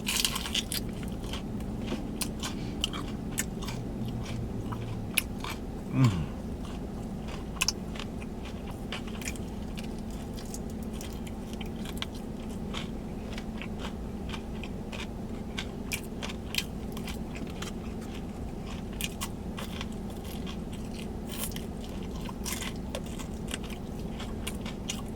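Close-miked biting and chewing of crispy fried food, with many short crunches one after another over a steady low hum.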